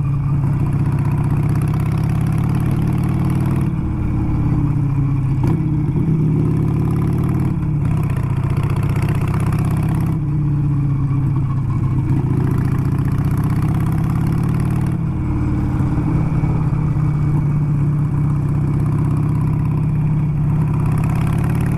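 Harley-Davidson motorcycle's V-twin engine running under way on a dirt road, its pitch rising and falling a little as the throttle changes, with road and wind noise.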